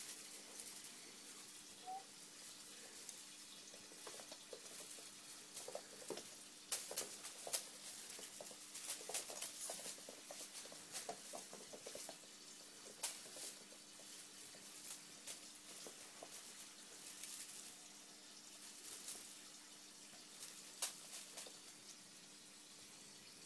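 Kittens scampering and pouncing on a wooden floor: light, irregular patter and clicks of paws and claws, busiest in the middle, over a faint steady hum.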